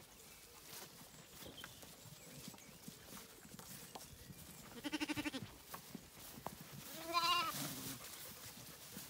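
Zwartbles lambs bleating: two bleats over quiet background. The first, about five seconds in, quavers. The second, a couple of seconds later, is higher and rises then falls.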